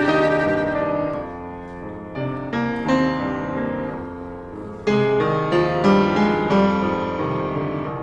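Instrumental piano music: chords and single notes struck and left to ring and fade, with fresh chords entering every second or two.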